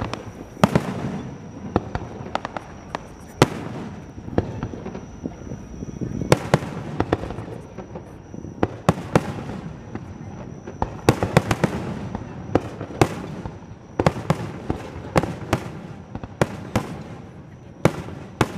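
Aerial fireworks going off: a string of sharp booms and cracks at irregular intervals, some coming in quick rapid-fire clusters, each with a short rumbling echo.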